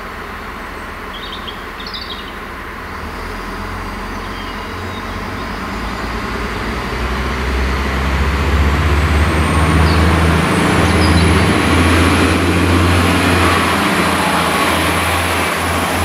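Diesel multiple unit approaching along the track: its low engine drone and rail rumble grow steadily louder until it draws right up close at the end. A thin high whine rises in from about nine seconds, and a few faint chirps come about a second in and again around ten seconds.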